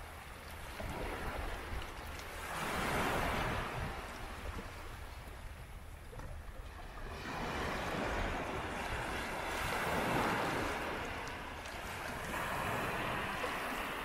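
Sea waves breaking and washing on the shore, the surf swelling and ebbing three times, the middle wave the longest, over a steady low rumble.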